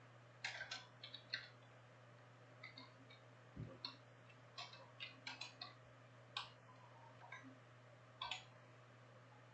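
Irregular clicks of a computer mouse and keyboard, a dozen or so, some in quick pairs, over a faint steady hum.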